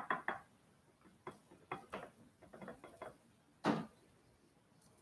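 Light clicks and taps of makeup brush handles knocking against each other and the hard sink counter as brushes are picked up and handled. A louder knock comes a little before the end.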